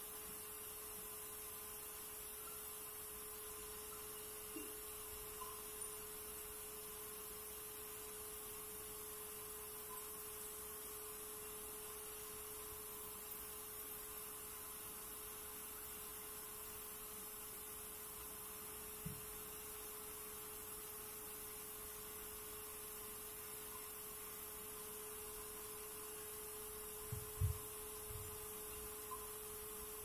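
Faint, steady electrical hum: a single unbroken tone over hiss, with a few soft low thumps, the strongest cluster near the end.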